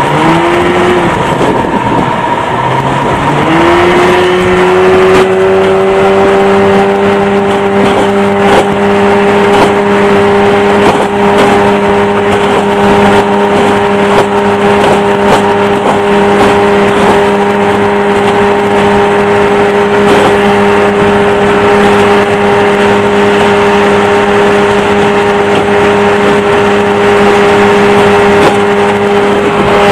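1986 Yamaha 30 hp two-stroke outboard motor revving up as the throttle is opened, its pitch rising in two steps over the first few seconds, then running steadily at high speed. A few faint knocks sound over the engine, typical of the hull meeting waves.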